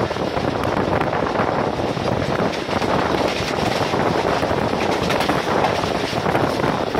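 Wind rushing over the microphone from an open coach window, mixed with the steady running noise and rattle of a passenger train coach travelling at speed.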